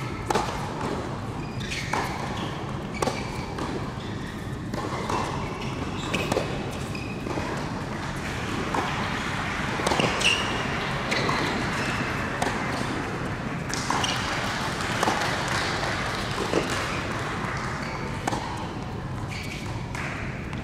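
Tennis rally on an indoor hard court: the ball is struck by rackets and bounces, in sharp hits about a second apart, over a steady background hum in a large hall.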